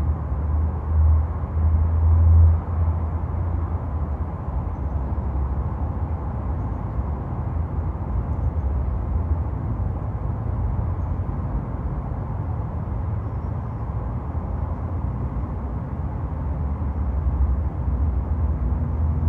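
Road traffic noise: a steady low rumble of passing vehicles. It swells in the first couple of seconds and again near the end.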